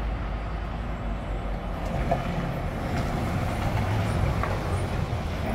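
Steady low rumble of city street traffic, with a vehicle running past that grows a little louder about two seconds in.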